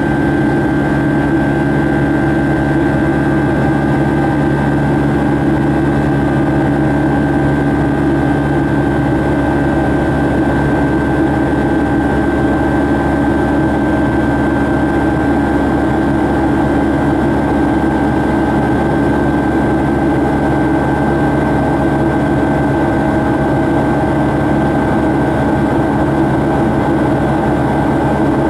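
Rolls-Royce RB211 turbofan on a Boeing 757-200 in flight, heard inside the cabin beside the engine: a steady drone with a steady high whine over it.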